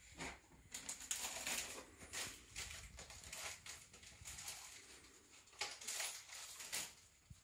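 Irregular soft rustling and scraping noises, many brief scrapes and crackles in quick succession, as of a cat shifting about on the plush carpet of a cat-tower cube.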